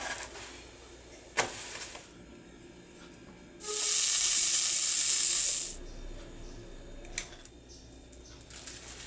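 A loud, even hiss lasting about two seconds, starting and stopping abruptly a little past the middle, with a sharp click about a second and a half in and another about seven seconds in.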